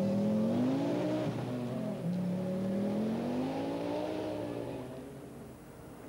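Rally car engine accelerating hard, its note climbing and dropping sharply at gear changes about one and two seconds in, then climbing again and fading away as the car drives off.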